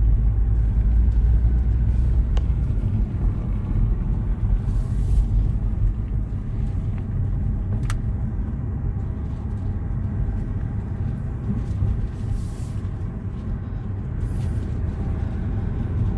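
A car running with a steady low rumble, loudest in the first few seconds.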